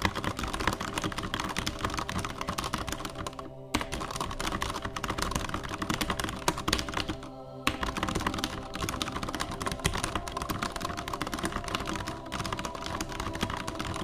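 Fast typing on a Durgod Taurus K320 mechanical keyboard with linear Cherry MX Red switches: a dense, rapid clatter of keystrokes, broken by two brief pauses about 4 and 7.5 seconds in.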